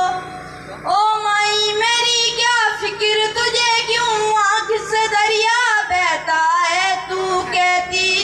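A boy singing solo in a high voice, holding long, wavering notes of a slow patriotic song, with a short pause for breath about a second in.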